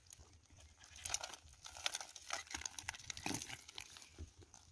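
Nylon-mesh crab trap being handled by hand: irregular rustling and crackling of the netting as a mud crab is worked out of the mesh, with a few sharper crackles scattered through.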